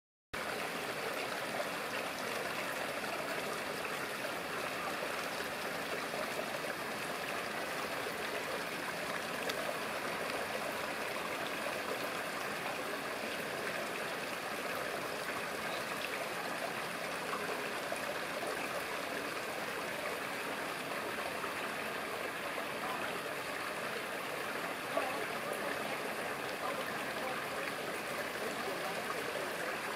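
Running water from a small stream over rocks: a steady, even rush.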